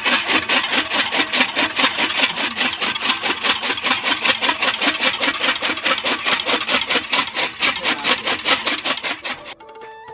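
Flywheel chaff cutter chopping green fodder: its blades slice in rapid, even strokes, about six a second, and the chopping stops abruptly near the end.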